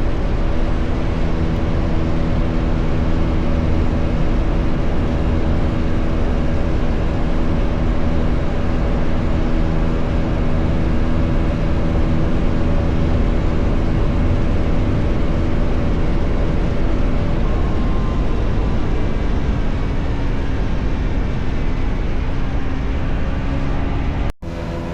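Bajaj Pulsar NS400Z's single-cylinder engine running at a steady cruise under heavy wind rush, its note holding a nearly constant pitch. The sound drops out for an instant shortly before the end.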